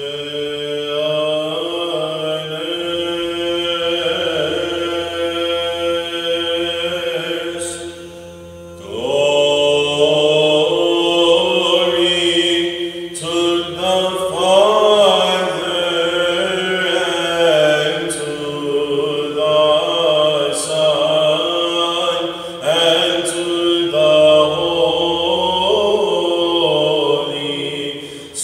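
Solo male chanter singing a Byzantine chant, a doxastikon of Vespers in English, in long melismatic lines over a steady low drone (ison). The voice pauses briefly about eight seconds in, then comes back.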